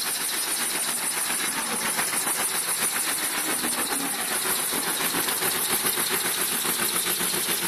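TYS800 wood shaving machine running while a log is fed into it and cut into shavings: a loud, continuous mechanical noise with a fast, even pulse.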